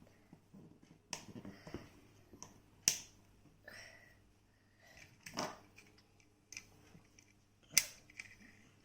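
Plastic LEGO Technic pieces clicking and rattling as they are handled and pressed together, with short rustles between and two sharp, louder clicks, about three seconds in and near the end.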